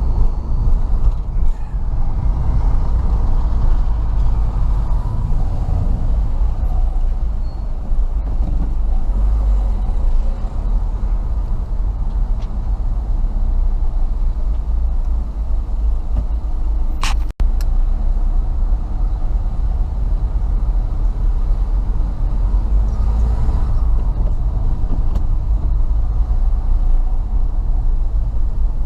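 Car cabin noise while driving in slow traffic: a steady low engine and road rumble. A single sharp click cuts through about two-thirds of the way in.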